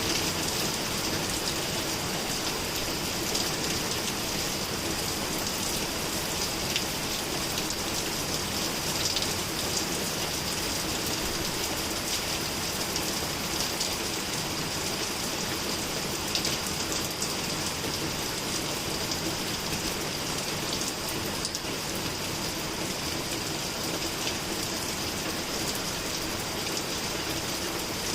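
Steady rain falling, with scattered sharp ticks of individual drops hitting a surface.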